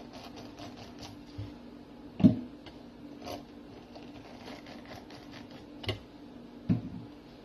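A lemon half twisted and pressed down on a stainless-steel cone juicer, giving a soft wet rasping. A few sharp knocks break in, the loudest a little over two seconds in.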